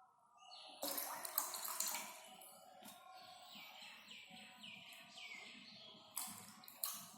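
Water splashing and gurgling in a plastic bottle as heater wires are pushed under the surface, with a series of short falling gurgles, then a couple of sharp knocks near the end.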